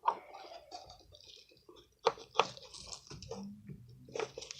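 Homemade slime being handled by hand: soft sticky squelches with scattered crackly clicks, the sharpest about two seconds in and again near the end.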